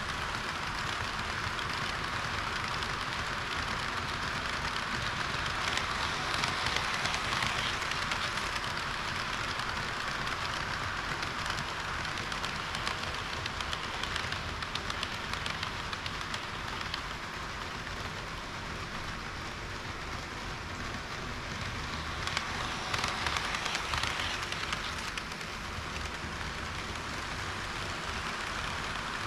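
HO-gauge model train running on the layout's track: a steady hiss of wheels on rails with faint clicks over rail joints. It gets louder for a couple of seconds twice, once early and once about three quarters of the way through.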